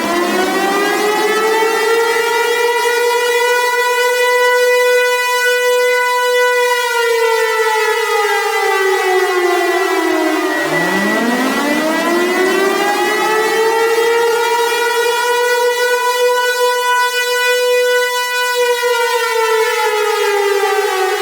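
Tornado warning siren wailing loudly. Its pitch climbs, holds high for a few seconds, then slowly sinks, twice over at about eleven seconds a cycle, with a steady high tone running underneath.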